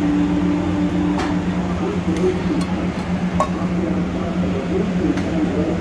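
Dining-room sound: a steady low hum with faint background voices, and a few light clicks and clinks of a steel spoon against a steel serving bowl as biryani is served out, one clink ringing briefly about three and a half seconds in.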